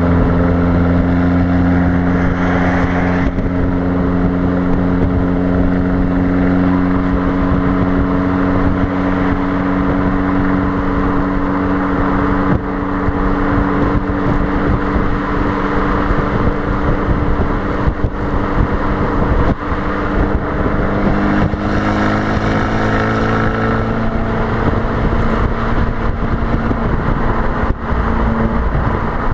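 Fiat Abarth 595's 1.4-litre turbocharged four-cylinder exhaust at a steady motorway cruise: a low, even drone that holds its pitch, rising slightly about two-thirds of the way through. Wind rushes over the microphone throughout.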